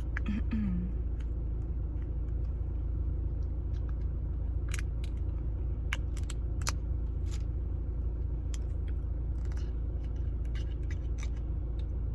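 Scattered light clicks and rustles of takeout food packaging being handled, over a steady low hum.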